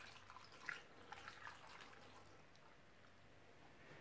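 Near silence: room tone with a few faint small taps in the first couple of seconds.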